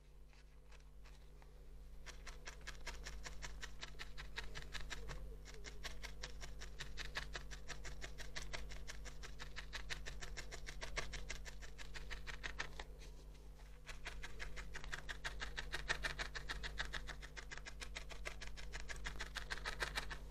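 Felting needle stabbing repeatedly into wool, a fast, even run of pokes several a second that picks up about two seconds in and pauses briefly about two-thirds of the way through.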